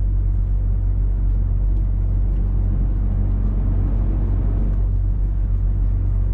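Heavy lorry on the move, heard from inside the cab: a steady low drone of the diesel engine and road rumble.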